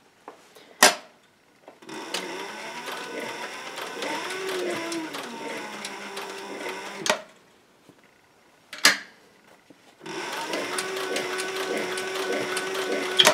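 Industrial sewing machine stitching suede leather over a synthetic-wool lining, running in two bursts of about five and three seconds. Sharp, loud clicks come before and at the end of each run.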